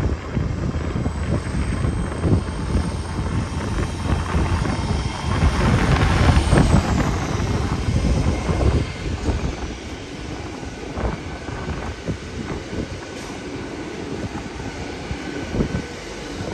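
GWR Hitachi bi-mode Intercity Express Train pulling away under its underfloor diesel engines, with its wheels rumbling on the track. It swells to its loudest about six seconds in, then eases off as the coaches move past.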